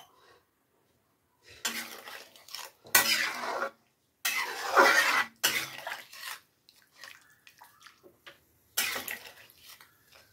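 Water being poured into a metal curry pot and a spoon stirring and knocking against the pot, in several short bursts with quiet gaps between them.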